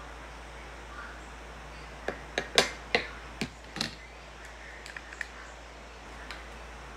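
A utensil scraping and knocking against a plastic tub of chocolate, a quick run of about six sharp scrapes in the middle, then a couple of faint clicks.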